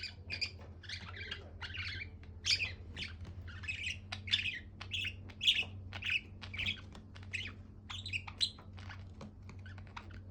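Budgerigar (budgie) chirping and chattering, a quick run of short chirps and squawks, two to three a second, with a faint steady low hum underneath.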